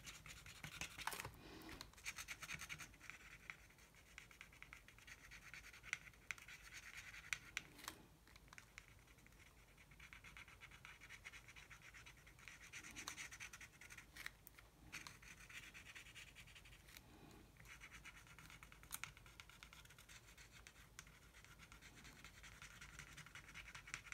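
Faint scratching of a black paint marker's tip rubbed back and forth over cardstock as an area is coloured in. It comes and goes in stretches, with a few light ticks.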